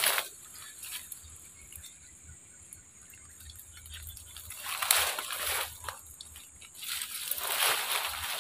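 Water splashing and sloshing in short bursts: once at the start, again about five seconds in, and a longer one near the end.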